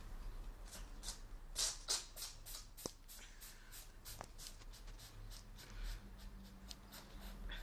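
A cat sneezing in a rapid string of short, sharp, hissy sneezes, about three a second, the loudest about one and a half to two seconds in.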